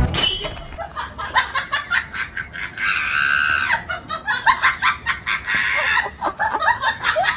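A person laughing in short, high-pitched bursts, with a longer squeal about three seconds in.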